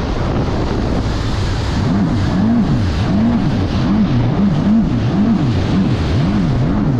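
Yamaha WaveRunner jet ski engine under way, its pitch rising and falling over and over, about twice a second, from about two seconds in, with wind buffeting the microphone.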